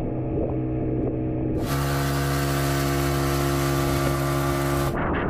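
Motorboat engine running steadily at speed. About a second and a half in, a loud rushing noise cuts in over it and stops abruptly just before the end.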